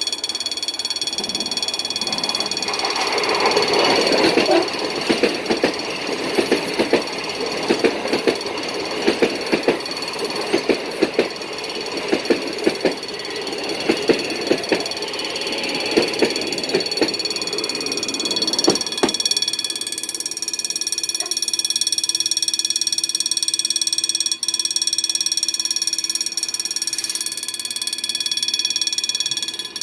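A train passes, its wheels clattering and clicking over rail joints for about the first 19 seconds. A steady level-crossing alarm tone sounds throughout and carries on alone once the train has gone.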